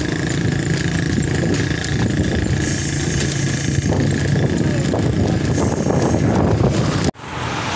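Road traffic: motor vehicle engines running close by, motorcycles among them, with a steady engine hum and the hiss of a vehicle passing. The sound cuts out abruptly for a moment about seven seconds in.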